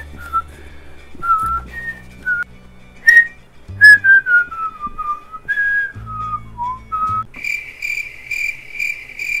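A man whistling a wandering tune in short held notes. About seven seconds in the whistling stops and a steady run of high, evenly spaced chirps begins, about two to three a second.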